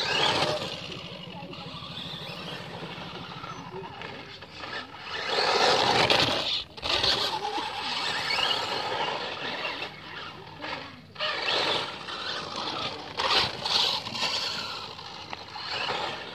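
1:10 scale radio-controlled short-course trucks driving fast over a dirt road: motor whir and tyres scrabbling on loose gravel. The sound swells each time a truck passes close, about a second in, around a third of the way through, and twice near the end.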